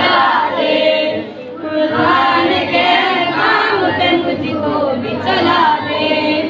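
A boy singing a devotional prayer chant into a microphone, in phrases with a short breath about a second and a half in, with other children's voices singing along.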